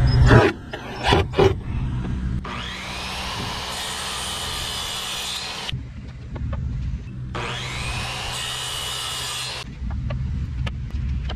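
Electric saw cutting wood in two passes, one of about three seconds and one of about two, the motor's whine rising as it comes up to speed at the start of each. A few sharp knocks come just before.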